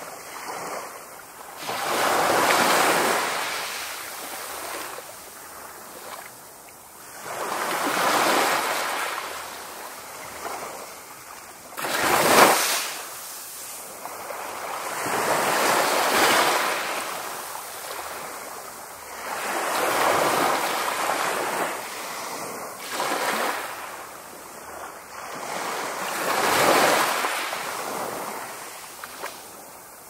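Ocean waves breaking and sliding up a beach: repeated swells of rushing surf, about every four seconds, each rising and then fading as the water draws back. The sharpest and loudest surge comes about twelve seconds in.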